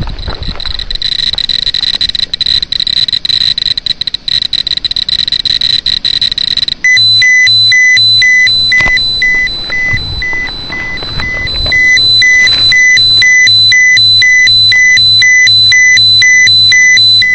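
Handheld Geiger counter clicking rapidly over a steady high tone. About seven seconds in, it switches to alarm beeping at about two beeps a second, signalling a high dose rate of around 14 microsieverts per hour.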